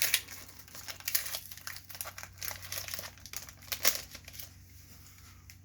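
Foil wrapper of a Pokémon trading card booster pack crinkling as it is torn open, a dense crackle that dies down about four and a half seconds in.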